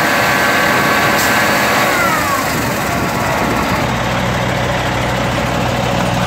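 Peterbilt roll-off truck's diesel engine running at raised revs with a steady whine, which falls away about two seconds in, leaving the engine idling. A short click sounds about a second in.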